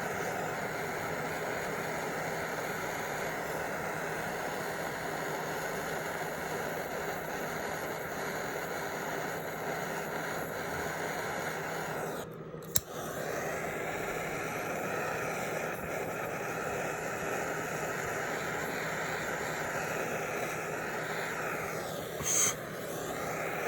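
Soldering torch flame hissing steadily while heating silver jump rings coated in soldering paste. About halfway through it cuts out briefly, then comes back after a sharp click.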